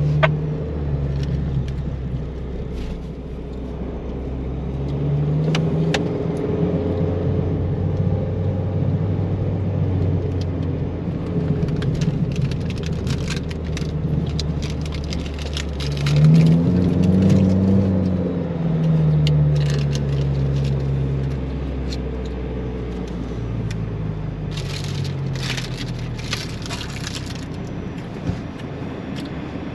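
An off-road vehicle's engine running as it drives over sand dunes, its pitch rising and falling with the throttle, with a stronger rev that rises then falls just past halfway. Bursts of rattling clicks come and go over the engine.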